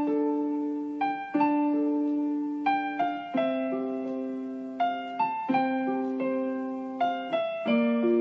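Background music: a slow keyboard melody of single piano-like notes, each struck and left to ring and fade before the next.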